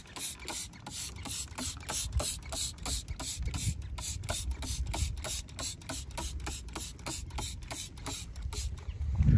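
Sponge scrubbing a soapy alloy wheel in quick back-and-forth strokes, about four rubbing strokes a second, over a low rumble.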